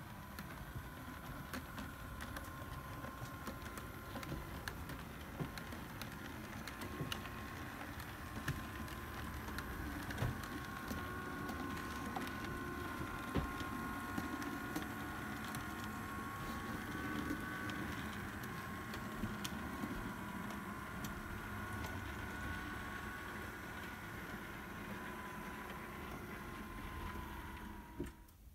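Model railway locomotive running on the layout: a steady electric motor whine with a second, higher tone above it, drifting slightly in pitch, over a low rumble and many small irregular clicks. The whine cuts off suddenly near the end.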